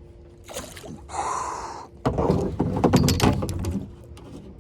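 Splashing and a run of hollow knocks and clatter as a hooked bass is lifted from the water into a kayak. The loudest part comes about two seconds in and lasts a couple of seconds.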